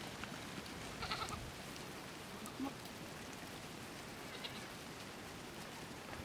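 Miniature goats bleating, one short bleat about a second in and a fainter one later, over a steady hiss.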